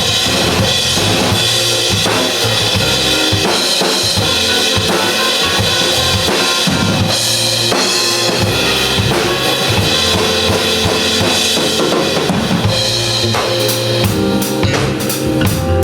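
Live pop band playing an instrumental passage with no vocals, the drum kit to the fore with kick drum and snare over the rest of the band. A run of sharp drum or cymbal hits comes near the end.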